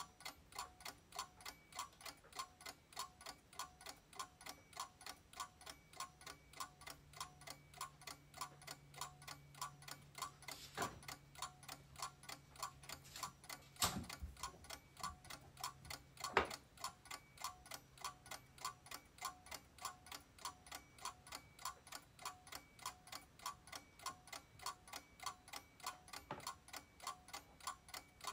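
Steady, even mechanical ticking, several ticks a second, like clockwork. A low hum runs through the middle, and three sharper knocks stand out partway through.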